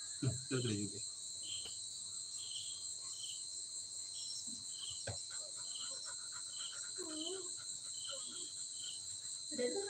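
Crickets chirring in a steady, continuous high chorus, with a second, shorter chirp repeating about twice a second. A few brief low sounds come near the start, about seven seconds in, and near the end.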